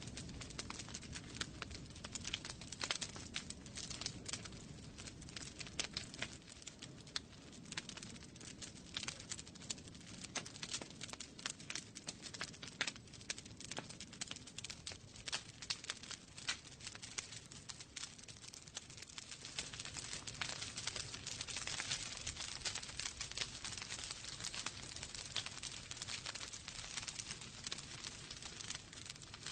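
Wood fire crackling in a fireplace: a dense, irregular run of sharp snaps and pops over a low rumble of flames, with a stretch of louder hiss about twenty seconds in.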